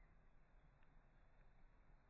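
Near silence: faint background hiss, with one faint tick a little under a second in.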